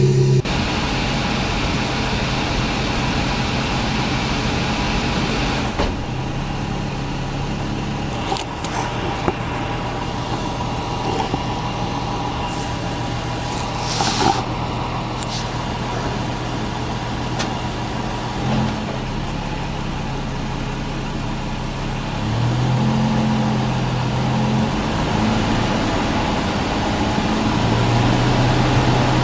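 A 2006 Toyota Tundra's engine and drivetrain running with the rear end jacked up, heard from underneath the truck. The hum is steady and changes pitch a few times, with a few sharp clicks in the middle. The truck has a vibration and clunk from 45 to 60 mph that the owner traces to worn driveshaft U-joints.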